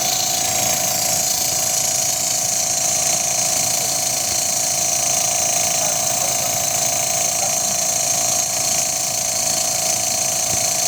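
Machinery running steadily, with one constant whine and a strong hiss above it and no change throughout.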